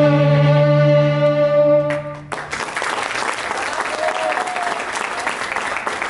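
Three violins hold the final chord of a piece, which cuts off a little over two seconds in. Audience applause follows.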